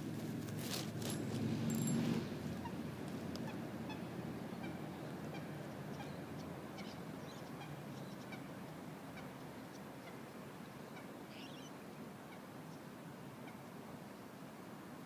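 Handling noise, rustling and clicks, for about the first two seconds, then a steady outdoor background with faint, scattered bird calls.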